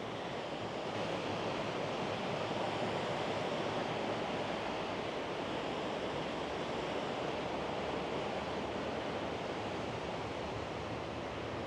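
Sea surf washing on the shore, mixed with gusty wind: a steady rushing hiss.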